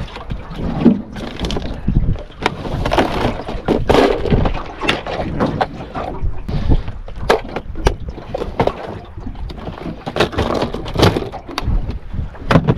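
Irregular sharp clicks and knocks of lures and a plastic tackle box being handled and rummaged through.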